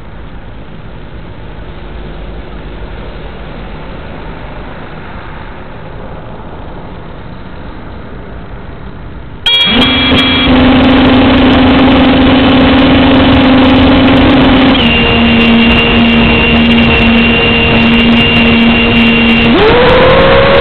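A steady hiss for the first half. Then an FPV quadcopter's brushless motors start abruptly at idle: a loud, steady whine with several pitches at once. The whine steps slightly lower, then begins rising near the end as the throttle comes up for takeoff.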